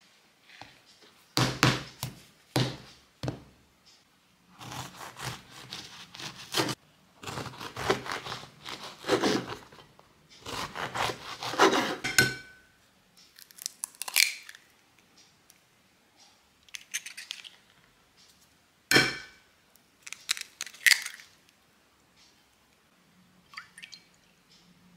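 Kitchen prep sounds. A wooden cutting board knocks down on a table three times. Then comes several seconds of a knife sawing through a crusty stale baguette on the board in runs of strokes, followed by scattered clinks and knocks of dishes.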